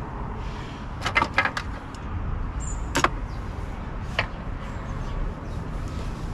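Plastic steering column cowling trim being handled and seated: a quick cluster of clicks and knocks about a second in, then single sharp clicks about three and four seconds in, over a steady low rumble.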